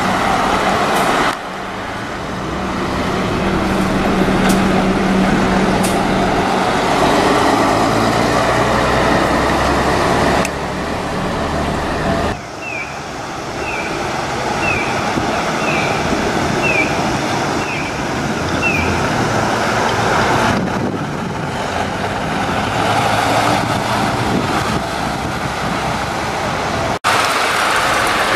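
Isuzu LV-series diesel city buses driving past, engines running and changing as they move off and go by, with steady road noise. In the middle a short, high chirp repeats about twice a second for several seconds.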